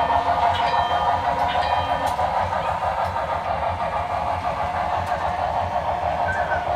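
Model railroad crossing signal's electronic bell ringing in quick repeated strokes, stopping about two seconds in as the wig-wag shuts off. Under it runs a steady train rumble from the layout's sound system.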